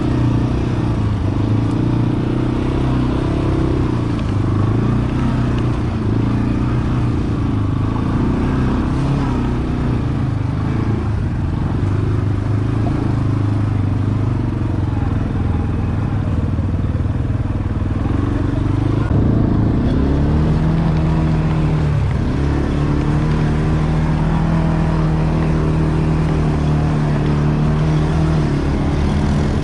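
ATV engine running at low speed with the revs rising and falling. About two-thirds of the way through it revs up and then holds a higher, steady note.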